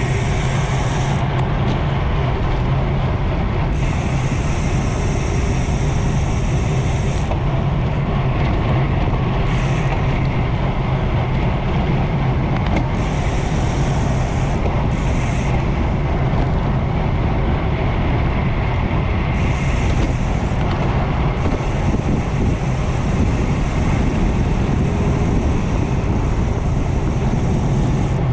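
Wind rushing over the microphone of a road bicycle descending at speed, a loud, steady rush, with a higher hiss that cuts in and out several times.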